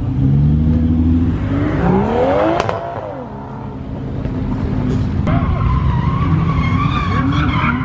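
A car engine revving hard, its pitch climbing for about two seconds and then dropping, followed by tyres squealing steadily in the second half as the car spins its wheels.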